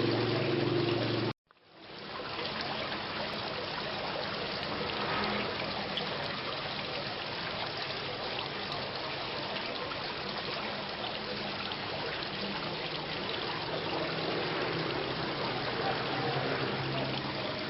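Steady rain, an even hiss of falling water. It cuts out abruptly about a second and a half in and fades back up within a second.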